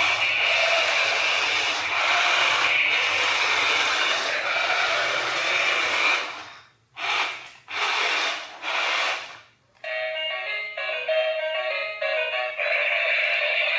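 A long hissing noise, then two short hisses, then a tinny electronic melody from about ten seconds in.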